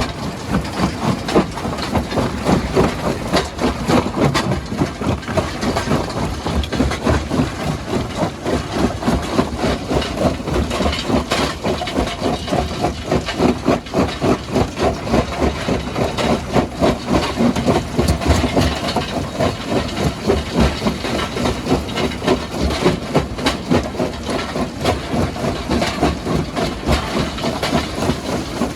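Rock-crushing machinery running steadily with a regular pulse of about three beats a second, with scattered knocks and cracks of stone.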